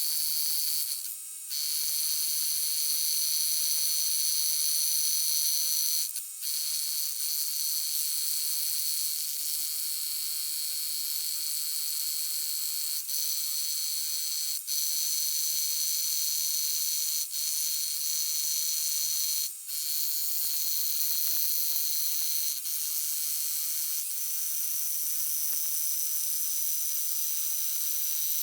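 Electric power tool running steadily with a high-pitched whine while working concrete, with brief dips a few times.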